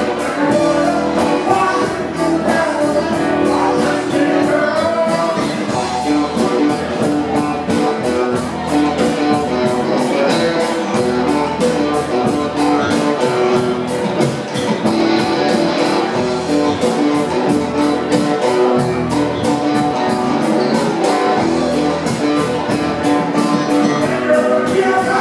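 Live rock band playing with electric guitars and hand percussion over a steady beat, with a man singing into the microphone.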